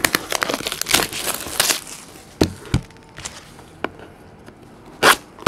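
Cellophane shrink-wrap on a trading card box crinkling and tearing as it is opened. A few sharp clicks follow, then scissors are brought in, and there is a loud short rustle near the end.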